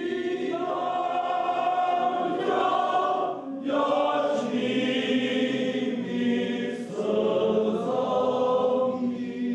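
A choir singing a song in long held phrases, with a short breath break about three and a half seconds in.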